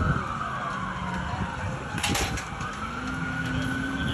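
Emergency vehicle siren wailing, its pitch falling slowly and then rising again, with a brief rush of noise about two seconds in.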